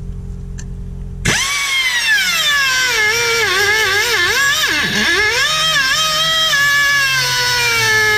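Straight cutoff tool's abrasive wheel whining as it cuts through a rusted sway bar end link. The whine starts abruptly a little over a second in, then its pitch sags and wobbles under load before steadying. The link's centre hex was rounded out, so it had to be cut off.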